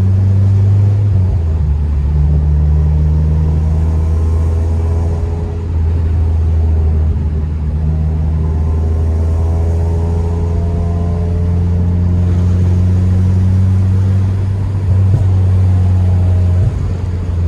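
Honda Civic Si engine and exhaust droning while driving at steady throttle, its pitch shifting a few times as the throttle or gear changes.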